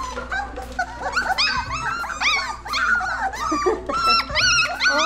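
A litter of alusky puppies whining and yipping together, many short high-pitched cries overlapping without a break. The puppies are clamouring as they wait to be fed.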